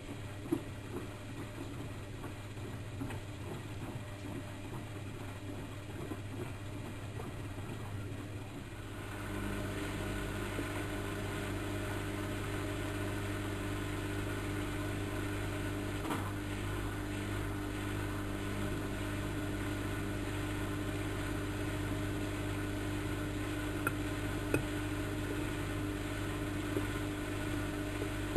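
Bauknecht WAK7760 front-loading washing machine running in its wash cycle: a steady motor hum that gets louder and fuller about nine seconds in and then holds even, with a few faint clicks.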